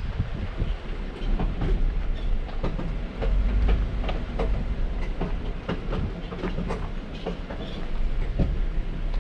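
A vehicle rolling slowly over a bumpy dirt road: a steady low rumble from the engine and tyres, with irregular clicks, knocks and rattles all the way through.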